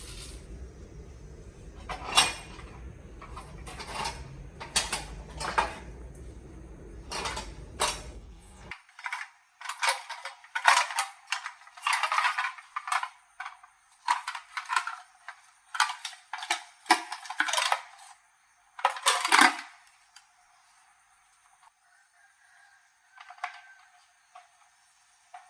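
Metal objects clinking and clattering against each other and a hard surface: scattered knocks at first, then a dense run of sharp clanks and rattles, before it goes quiet with only a couple of faint clicks near the end.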